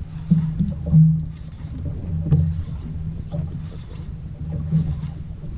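A fishing boat's engine running steadily with a low hum that swells and fades a little, with a few faint knocks.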